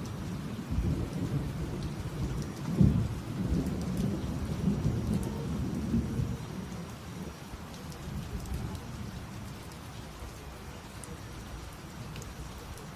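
Thunder rumbling over steady rain, loudest about three seconds in and dying away over the second half.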